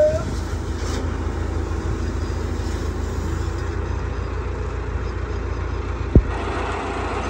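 Vacuum truck's engine running steadily under a steady hiss of water spraying from a hose. There is one sharp thump about six seconds in, and the hiss grows louder just after it.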